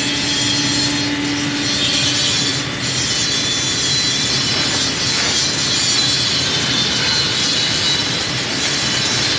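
Electric arc of stick welding, run with two electrodes at once, giving a steady hissing crackle.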